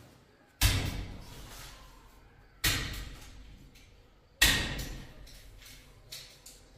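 Three sharp thumps, about two seconds apart, each dying away over about a second: hands slapping a photo poster flat against a wall.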